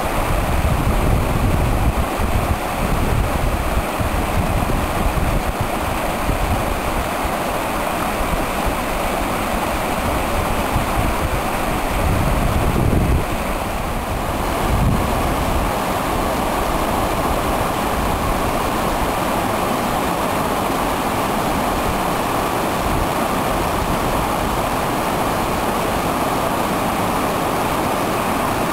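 Stream water running and splashing in a steady rush. Gusts of wind rumble on the microphone during the first half, then die away about halfway through.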